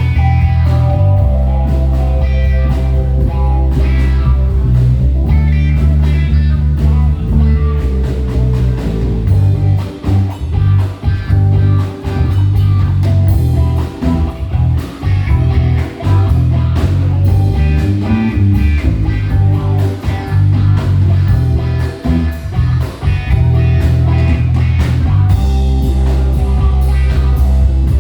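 Live band playing a blues-rock instrumental: guitar over a heavy bass line, drums and keyboard.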